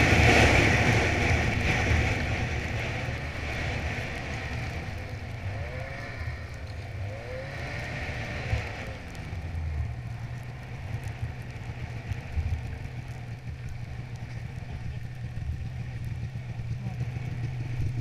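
Ski-Doo Freeride snowmobile's two-stroke engine running, easing off over the first few seconds as the sled slows, then settling to a steady low idle as it comes to a stop.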